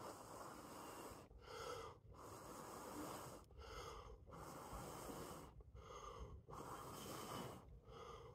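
A person blowing long, steady breaths into a smouldering bark tinder bundle to bring a hand-drill friction-fire coal to flame. There is about one blow every two seconds, with a quick breath in between, and the tinder is slightly damp.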